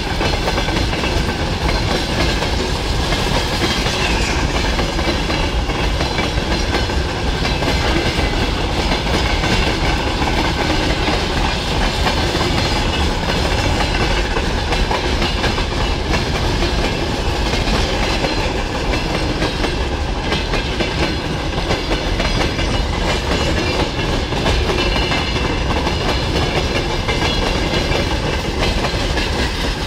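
Freight train of covered hopper wagons rolling past, their steel wheels running over the rails, loud and steady.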